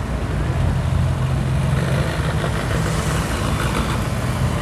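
Road vehicles passing close by: a pickup truck's engine going past, then a tractor towing a trolley coming up, its engine running steadily over a growing hiss of tyre and road noise.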